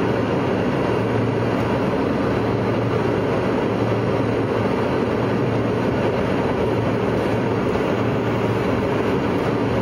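Steady airliner cabin noise in flight: the even rush of airflow and jet engines heard from inside the cabin, with a low hum underneath.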